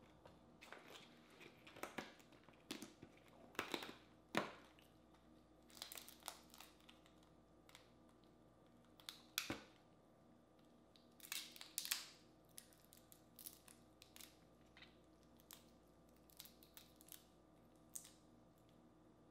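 Boiled crawfish shells being cracked and peeled apart by hand: scattered crisp cracks and crackles, coming in clusters with pauses, the loudest snaps about four seconds in and again around twelve seconds in.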